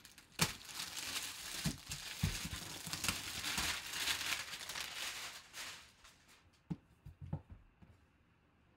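Plastic wrapping crinkling and tearing as a boxed football helmet is unwrapped and handled, for about six seconds, then a few light knocks before it goes quiet.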